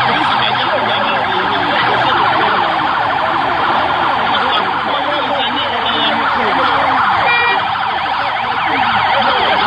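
Several sirens sounding at once, their fast rising-and-falling yelps overlapping into a continuous wail, with voices underneath.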